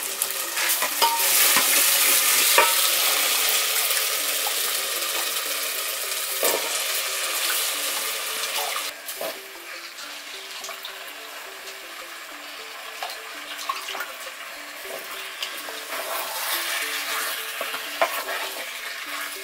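Tomato sauce frying in oil in a metal pot, sizzling with a steady hiss, with clicks and knocks from a wooden spoon stirring in freshly cut tula. The sizzle is loudest in the first half and dies down after about nine seconds.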